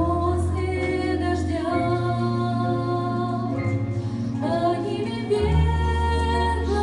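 A sung song: a voice holding long notes over an instrumental backing with sustained bass notes that change every second or two.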